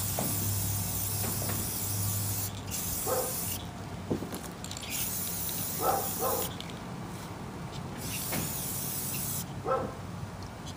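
Aerosol can of metallic gold spray paint hissing in about four bursts, the first the longest, with short pauses between them. A few short barks stand out above the hiss.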